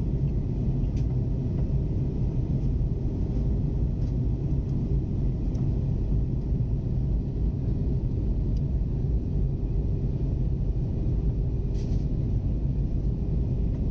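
Airbus A321neo cabin noise heard at a window seat on approach: a steady, deep rumble of engines and airflow, with a few faint clicks.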